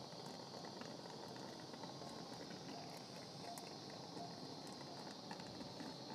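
Quiet, steady room hiss with a few faint clicks.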